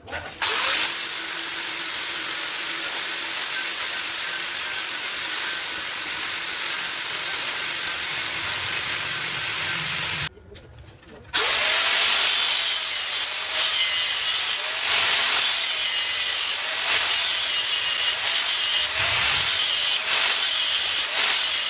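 A power tool working a steel rod that is being shaped into a drill bit: a steady gritty cutting noise. It stops for about a second about ten seconds in, then starts again with a rhythmic pulse about once a second.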